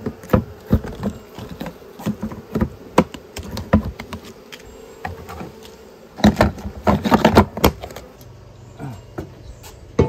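Honeybees buzzing around a plastic beehive, over a string of hard knocks and clatter as the hive is handled. The knocks come thickest and loudest about six to eight seconds in.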